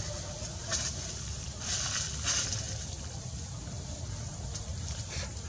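Steady low rumble and hiss of outdoor background noise, with a few short rustles, about three, scattered through it.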